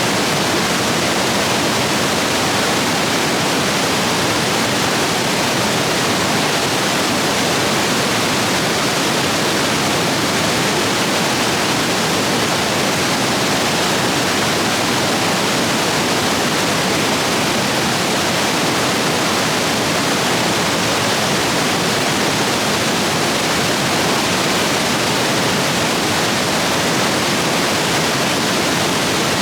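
Rain-swollen stream rapids rushing over rocks, a steady loud roar of water.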